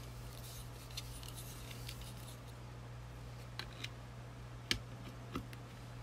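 Hands handling a plastic neckband fan and its cable: light rustling, then a few sharp plastic clicks and taps from about three and a half seconds in, the sharpest near five seconds. A steady low hum lies underneath.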